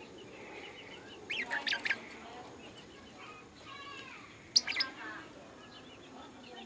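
Lovebirds chirping: two short bouts of loud, high chirps, about a second in and again near five seconds, with softer twittering in between.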